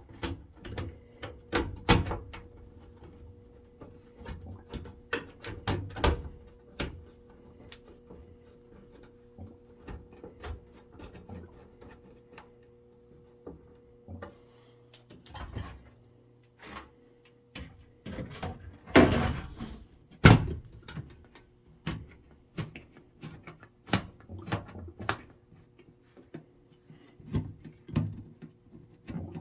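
Gas furnace motor, likely the draft inducer, humming steadily during an ignition attempt in which the burner does not light. Scattered clicks and knocks sound over it, with two louder knocks about two-thirds of the way in. The higher part of the hum drops out about halfway.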